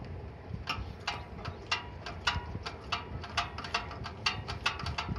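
Sharp metal clicks, two or three a second and unevenly spaced, from the throttle lever of a Yamaha snowblower's carburettor being worked back and forth by hand and snapping against its stops. A stiff, gummed throttle shaft is being loosened: the cause of the engine racing at idle and not dropping back to low revs.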